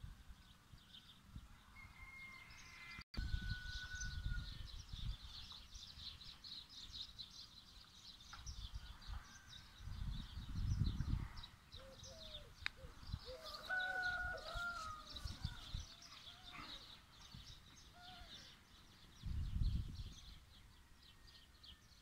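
Small birds chirping in a dense, rapid chatter, with a few lower calls in the middle. Wind buffets the microphone in low rumbling gusts, three times.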